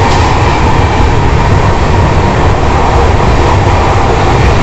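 Steady rumble of an Indian Railways passenger train running along the track, heard from inside a 3rd AC coach.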